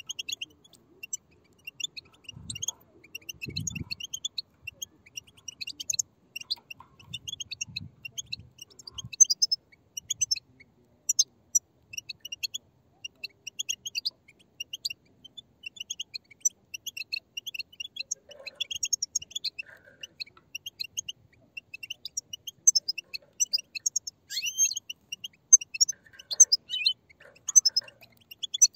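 A flock of young European goldfinches giving rapid, overlapping high chirping calls, a dense twittering chatter. A few faint low knocks sound in the first few seconds.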